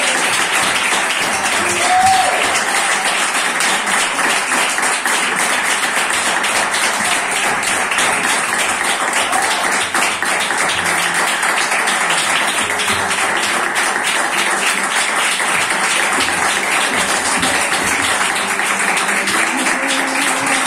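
Audience applause, dense and sustained, over flamenco guitar, with a few brief vocal calls about two seconds in and again near the middle.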